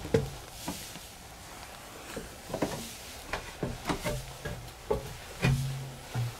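Footsteps going down steep wooden stairs: about ten irregular hollow knocks on the treads, several followed by a short low creak or hum of the boards.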